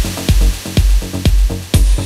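Progressive house track with a steady four-on-the-floor kick drum, about two beats a second, under a bright hissing noise layer and hi-hats.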